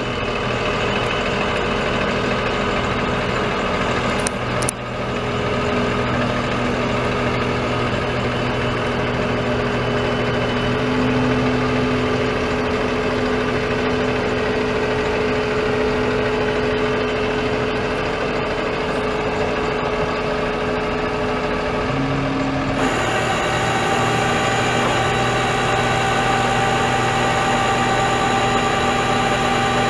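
Cummins ISB 6.7-litre inline-six turbo diesel of a Ford F650 truck idling steadily. About 23 s in, the sound suddenly steps up to a higher, brighter tone.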